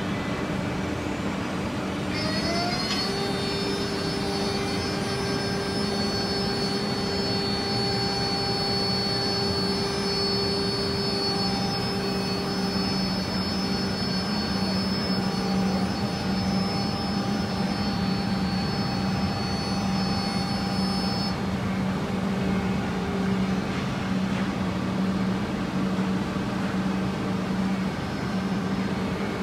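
Woodmaster 5-axis CNC machining centre running: its spindle rises to speed a couple of seconds in and holds a steady high whine until about two-thirds of the way through, when the whine stops. A constant machine drone runs underneath.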